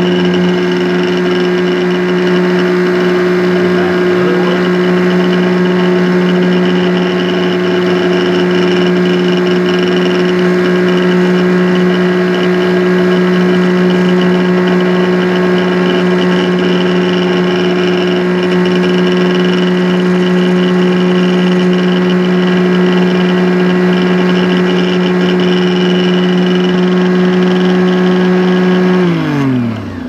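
Benchtop key duplicating machine's electric motor and cutter wheel running with a loud, steady hum. About a second before the end it is switched off, and the hum falls in pitch as the machine winds down.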